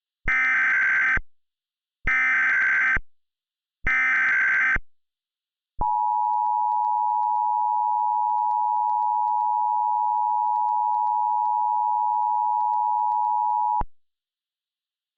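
Emergency Alert System opening: three short bursts of SAME header data, each just under a second, then the steady EAS attention tone, held for about eight seconds before cutting off.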